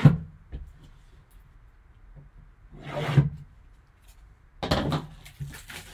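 A shrink-wrapped cardboard card box being handled and rubbed against the table and gloves. There are separate scraping swishes at the start, about three seconds in and about five seconds in, with a few light clicks near the end.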